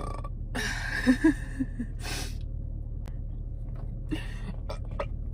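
A woman's breathy exhale with a few short, weak throaty burp croaks about a second in, followed by more breathy puffs. The burps are not fully coming out.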